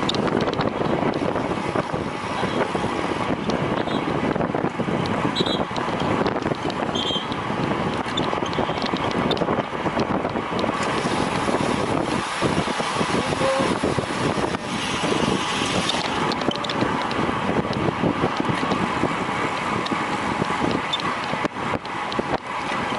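Wind rushing over the microphone of a moving camera, mixed with steady rolling and vehicle-like noise.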